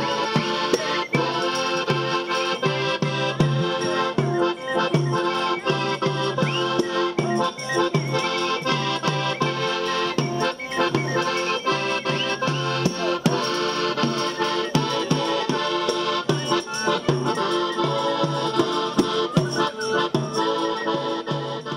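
Accordion playing a lively traditional folk dance tune, with tambourine jingles and beats keeping a steady rhythm.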